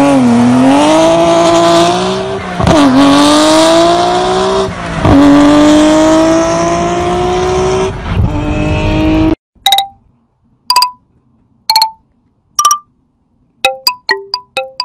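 A car engine revving hard and climbing in pitch in three long pulls, with sudden drops between them like gear changes, as in a race car accelerating. It cuts off after about nine seconds, and short plucked, chime-like music notes follow, coming faster near the end.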